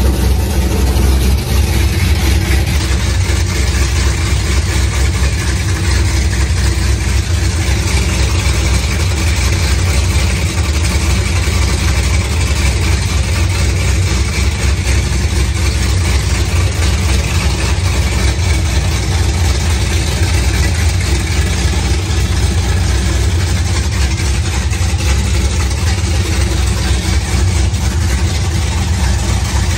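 427 LSX V8 in a ZL1 Camaro idling steadily, freshly started and warming up. The engine holds an even pitch with no revs.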